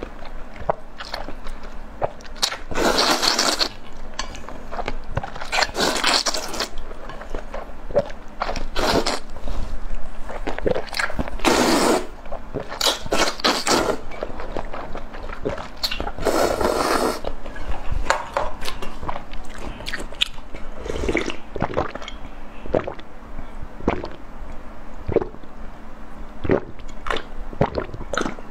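Mukbang eating sounds: repeated loud, wet slurps of noodles in red sauce from a bowl, with chewing and small clicks in between.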